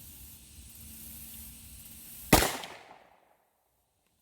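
A single .357 Magnum gunshot about two seconds in: one sharp crack with a short decaying tail.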